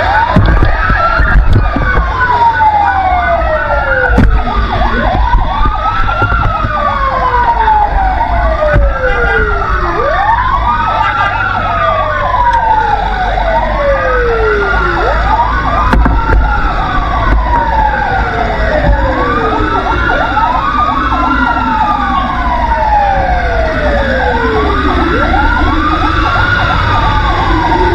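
Fire truck sirens wailing, more than one at once: each sweep rises quickly to a high pitch and falls slowly over about two seconds, and the sweeps overlap out of step. A steady low rumble of engine and road noise runs underneath.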